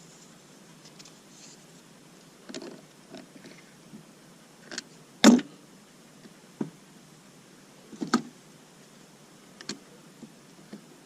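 Scattered clicks and knocks of tools and parts being handled while an injection pump is worked on, the loudest knock a little over five seconds in.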